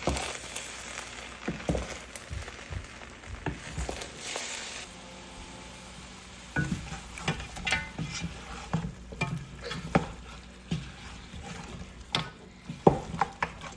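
Food sizzling in a cooking pot, with a utensil stirring and clinking against the pot: a steady hiss for the first few seconds, then repeated short knocks and clinks.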